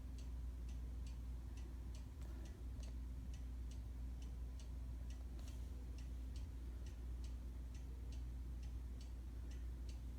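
Steady, even mechanical ticking, about three ticks a second, over a low steady hum.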